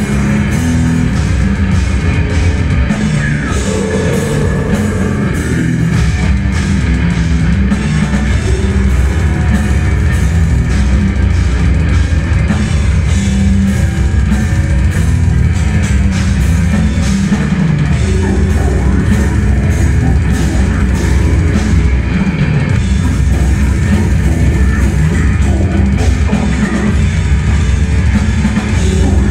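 A death metal band playing live at full volume: heavily distorted guitars over fast, dense drumming, heard through the club's PA from among the crowd.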